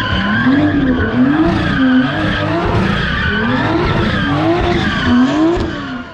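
Toyota GR Supra doing donuts: the engine revs rise and fall about once a second over the screech of spinning tyres. The sound fades out near the end.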